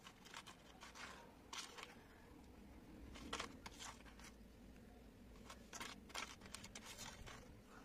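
Faint scraping of a metal spoon scooping and spreading thick wet paste into a plastic mould, in short clusters of soft scrapes.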